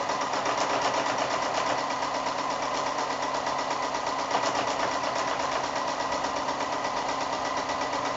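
Sewing machine running at a steady speed, stitching a straight line of machine quilting through the layers of a quilt, with a rapid, even rhythm of stitches.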